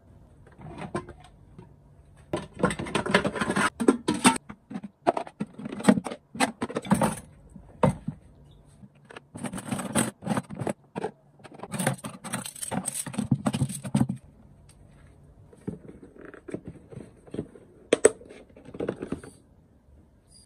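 Dishes being washed by hand in a plastic basin: a scrubbing brush scraping and metal spoons and knives clattering, in bursts with short pauses between them. A sharp clack near the end.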